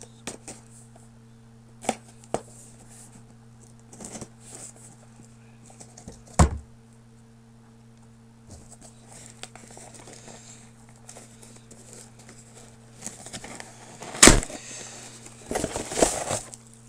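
A shipping package being handled and opened by hand: scattered clicks and scrapes, a loud thump about six seconds in and another near the end, followed by rustling and crinkling of the packaging. A steady low electrical hum lies underneath.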